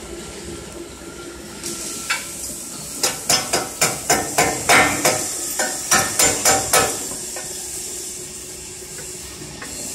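Sharp metal-on-metal knocks, about a dozen in quick irregular succession starting about three seconds in and lasting some four seconds, each with a short ring: steel fittings being tapped while they are fitted to the frame of a seam-welding machine.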